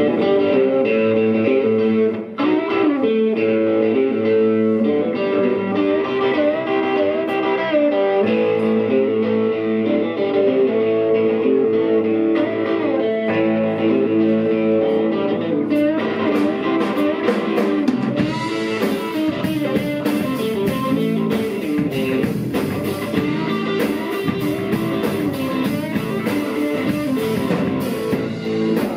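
Live blues band playing an instrumental opening on electric guitars and bass guitar. The drum kit comes in more fully a little past halfway, with cymbals joining.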